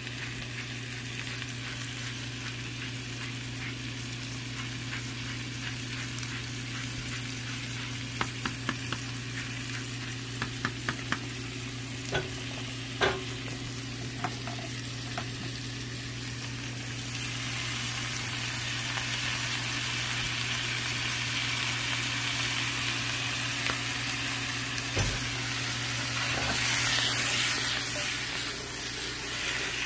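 Potatoes, olives and garlic frying in fat in a cast iron pan, a steady sizzle with a run of light clicks and taps from about eight to fifteen seconds in. The sizzle gets louder a little past halfway.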